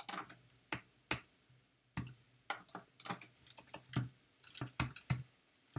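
Typing on a computer keyboard: an irregular run of individual keystrokes, a few scattered ones at first, then quicker clusters from about halfway through.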